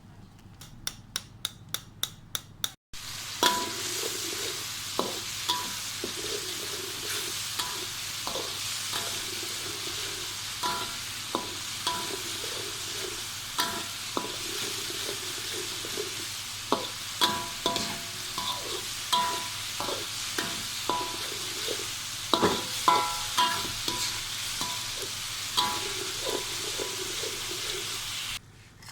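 Sliced onions sizzling steadily in hot oil while a metal spatula stirs them, scraping and clinking against the pan. It opens with a quick run of about eight even clicks, about four a second.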